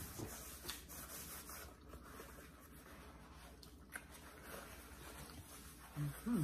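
Paper napkin rustling and rubbing as it wipes a face, with a few faint clicks. Two short hummed voice sounds near the end.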